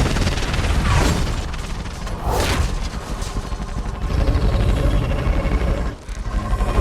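Designed sci-fi film sound effect: a heavy low rumble with sweeping whooshes about one second and two and a half seconds in, dipping away briefly near the end.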